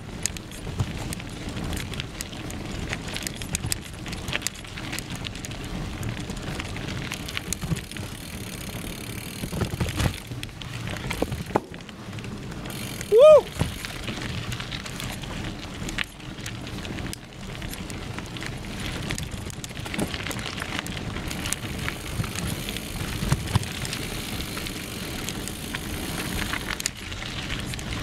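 Mountain bike rolling along a dirt forest singletrack: steady tyre noise on the trail with many small clicks and rattles from the bike. A short squeal that rises and falls in pitch comes about halfway through and is the loudest sound.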